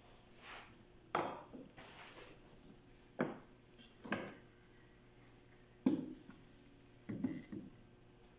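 Hard plastic and metal parts of a photocopier's drum unit being handled, giving a handful of sharp clicks and knocks, a quick cluster of them near the end, with softer rustling and scraping between.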